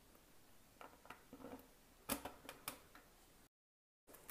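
Faint small clicks and taps of a bolt and an acrylic window panel being handled and fitted against a 3D printer's frame, with one sharper click about two seconds in. The sound drops out to dead silence for about half a second near the end.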